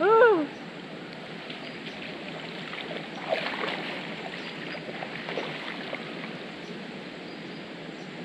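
Muddy water sloshing and splashing as someone wades through a flooded rice paddy and gropes in the water with their hands, with louder splashes about three and five seconds in.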